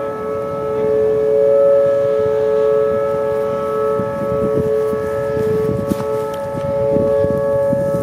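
Federal Signal 2T22 dual-tone outdoor warning siren sounding its steady alert signal: a chord of two held tones that does not rise or fall in pitch, its loudness swelling and fading slowly.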